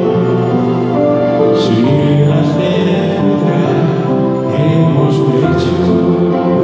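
Two male voices singing a colind, a Romanian Christmas carol, through microphones with musical accompaniment, in long held notes.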